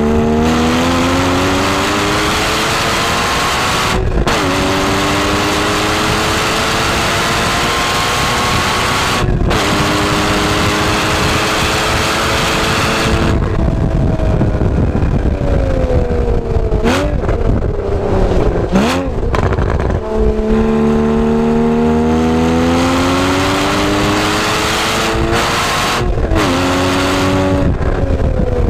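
Porsche 981 Cayman S's mid-mounted 3.4-litre flat-six, heard from inside the cabin, pulling hard at speed on track. The engine note climbs and snaps back down at upshifts about 4 and 9 seconds in. Around 13 seconds it drops away off throttle, with two short blips of revs on the downshifts, then climbs again from about 20 seconds with another upshift near the end.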